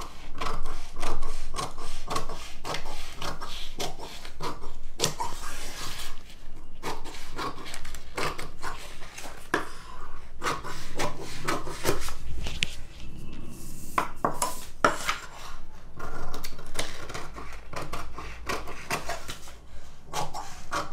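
Large tailoring scissors cutting through a cardboard pattern sheet: a long run of irregular crunching snips, the blades clicking shut, with rubbing of the card between cuts.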